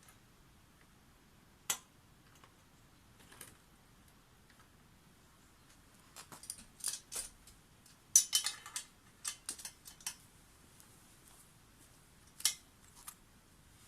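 Small metal objects clinking and clicking now and then, with a quick burst of rattling clinks about eight seconds in; no engine running.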